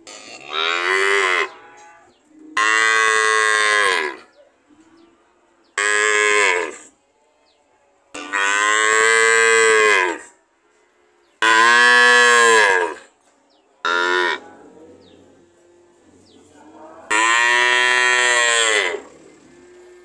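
Cattle mooing again and again: seven separate calls, most one to two seconds long and one short, each rising and falling in pitch, with brief pauses between them.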